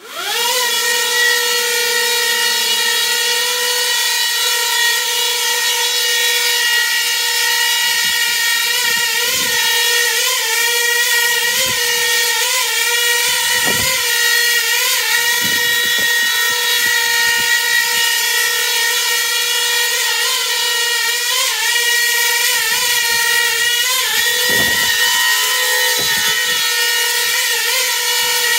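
Coaxial multicopter's motors and contra-rotating propellers whirring in flight: a steady high whine of several tones that spins up quickly at the start. Its pitch wobbles briefly every few seconds as AutoTune twitches the copter on its pitch axis, with occasional low thumps.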